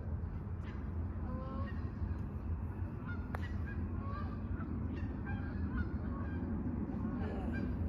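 Scattered short bird calls over a steady low rumble, with one sharp click about three seconds in.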